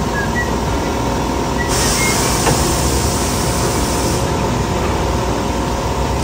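Vehicle engine running steadily. A high hiss starts suddenly about two seconds in and cuts off about two and a half seconds later.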